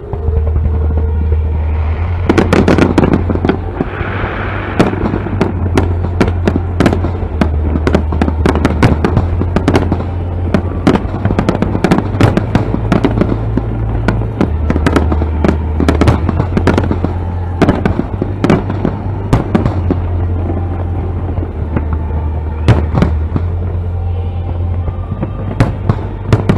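Aerial fireworks bursting in quick succession: a dense run of sharp bangs and crackles begins about two seconds in and goes on without a break.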